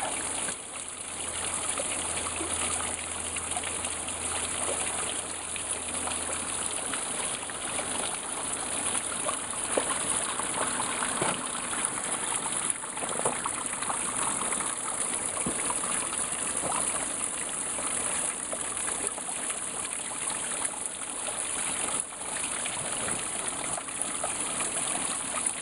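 Water running steadily in a stream at the foot of a partly frozen waterfall.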